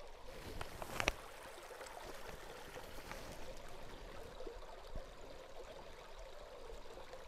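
Shallow creek water running steadily and faintly as a soft Sawyer Squeeze pouch fills in the current. A short sharp tap about a second in, with a smaller one later.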